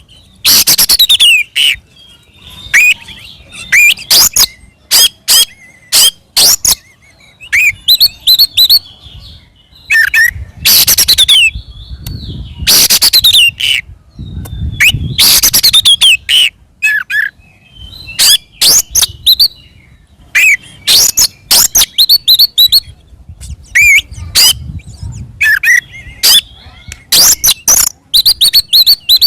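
Oriental magpie-robin (kacer) singing loudly in aggressive fighting song: rapid harsh, rasping bursts alternating with sweeping whistled notes, over and over.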